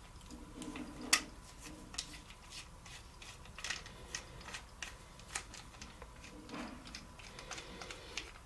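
Small screwdriver and hands working the tiny screws on the underside of a plastic outdoor bullet security camera: faint, irregular light clicks and scrapes, the sharpest about a second in.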